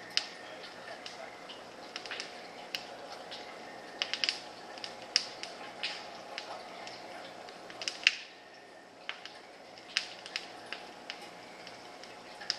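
A dozen or so sharp ticks and clicks at irregular intervals over a steady faint hum, the loudest a double click about eight seconds in.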